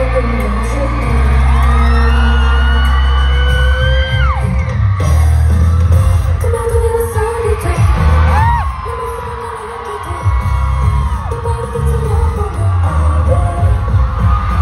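Live girl-group pop song played loud through a concert hall's sound system, with heavy bass and women's voices singing into microphones. Fans yell and whoop over the music, heard from a phone in the crowd.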